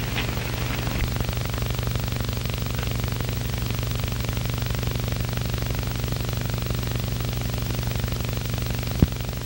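Steady low hum and hiss of a worn old film soundtrack, with a sharp pop near the end.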